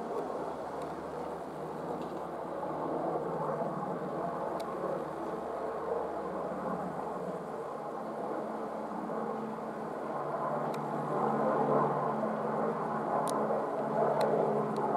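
Military helicopter flying past: a steady rotor and turbine rumble that grows louder toward the end.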